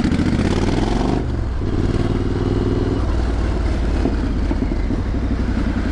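Triumph Street Scrambler's 900 cc parallel-twin engine and exhaust under way. The engine note rises, breaks off briefly about a second in, then runs on steadily.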